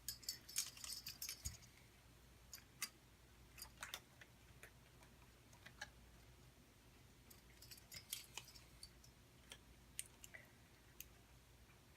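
Faint clicks and crinkling of a CPU cooler's packaging being handled and opened, in scattered short bursts.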